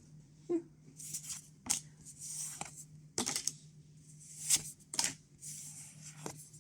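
Trading cards being flipped and slid off one another, one after another. Each card makes a crisp snap, with a papery swish between snaps.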